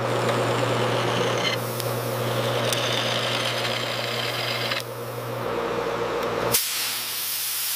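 A heavy machine drill boring into a steel plate: a steady low motor hum with a grinding, hissing cut over it. About six and a half seconds in, the hum drops away and a harsh hiss carries on.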